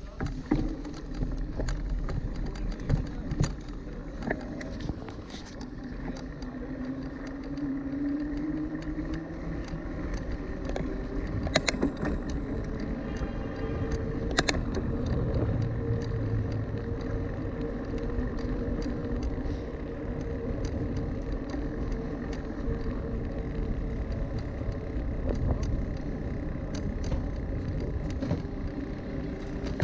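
Riding a bicycle over paving stones and asphalt: steady tyre and road rumble with frequent rattling clicks and knocks. A faint whine rises in pitch about eight seconds in and then holds steady until about 25 seconds in.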